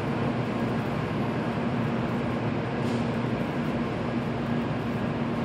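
Steady hum of a JR Kyushu N700 series shinkansen standing at the platform, its air-conditioning and onboard electrical equipment running, with a steady low drone tone over an even rushing noise.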